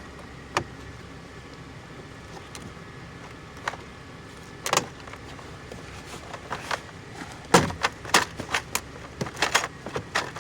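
Hand work on a car's interior door panel: scattered sharp clicks and knocks of a screwdriver on screws and plastic trim. They come sparsely at first and then quickly from about seven seconds in, over a steady low hum.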